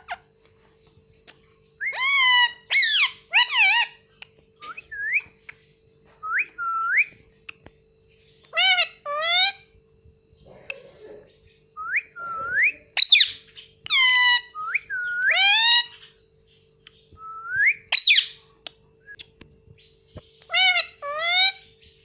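Indian ringneck parakeet whistling and calling in short, rising, swooping notes, often two or three in quick succession, repeated every second or two.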